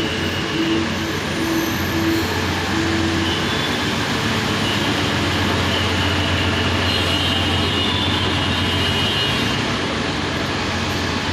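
Diesel train engine running steadily at a station platform, a low, even hum. For the first three seconds or so a short tone beeps on and off, a little faster than once a second.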